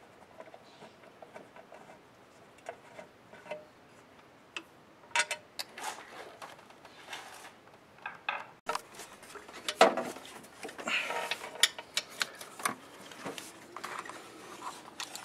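Hand ratchet clicking faintly as it turns a bolt in the engine bay, followed by metal tool clinks and knocks against engine parts, with louder clattering and rustling handling noise from about nine seconds in.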